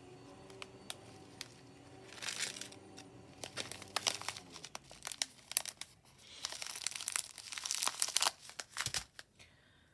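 Plastic resealable pouch crinkling as it is handled in the hands, in several irregular bursts with small sharp clicks, the longest and loudest about seven to eight seconds in.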